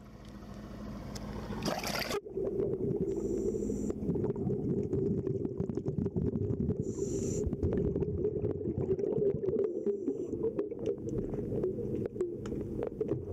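Underwater sound heard through a camera's housing: a steady low rumble with frequent crackling clicks and three brief hisses, fading up over the first two seconds.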